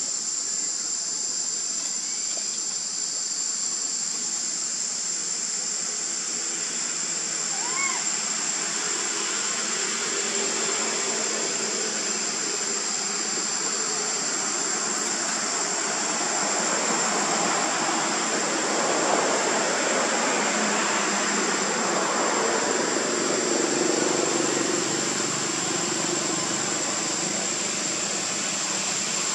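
Tropical forest ambience: a steady high-pitched insect drone over a broad rushing hiss that grows louder past the middle, with one short rising chirp about eight seconds in.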